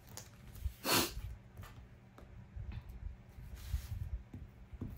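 Light rustling and handling of paper and craft pieces over a low steady hum, with a short rushing sound about a second in.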